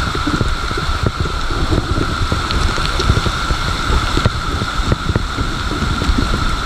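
Mountain bike rolling through water on a flooded road, tyres splashing and wind rumbling on the action camera's microphone, with a steady high whine underneath.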